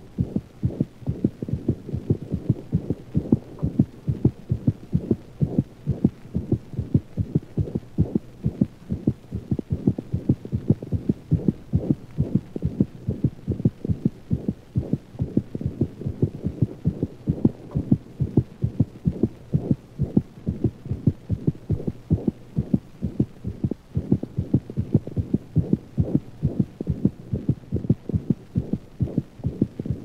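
A dog's heart heard through a stethoscope: a fast, regular heartbeat of low thuds.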